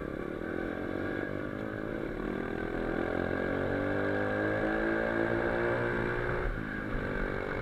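A 125 cc pitbike's single-cylinder four-stroke engine running under throttle while riding. Its pitch climbs gradually, then drops about six and a half seconds in.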